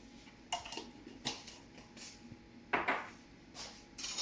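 Kitchen utensils clinking against dishes: five or six separate sharp clinks spread about a second apart, with a louder clattering rattle starting near the end.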